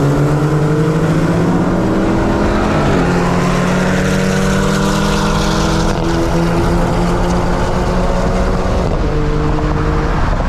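Infiniti G37's V6 heard from inside the cabin under hard acceleration, its pitch climbing and then dropping back at upshifts, about three seconds in and twice more later, over steady road and wind noise.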